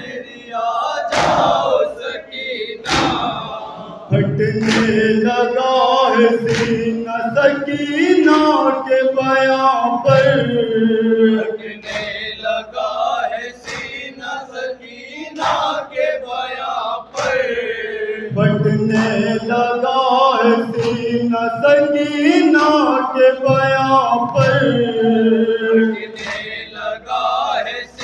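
A group of men chanting an Urdu noha (mourning lament) together behind a lead reciter, with chest-beating (matam) thumps landing about once every second or two to keep the beat.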